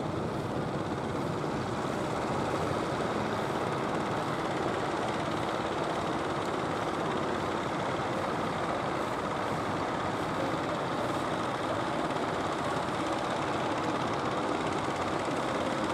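Engine of a motorised wooden fishing boat running steadily, a constant mechanical drone.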